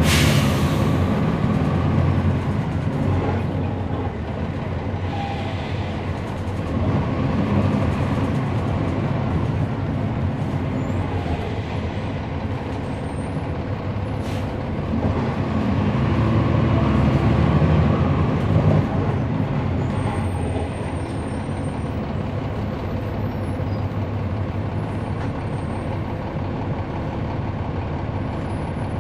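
Inside a 2011 NABI 40-SFW transit bus on the move: its Cummins ISL9 diesel running under the floor with road and cabin noise, swelling louder about 7 s in and again from about 15 to 18 s as it pulls. A short burst of air hiss at the very start.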